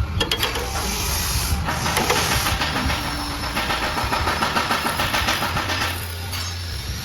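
Machinery running: a steady low hum under a dense rattling clatter and hiss.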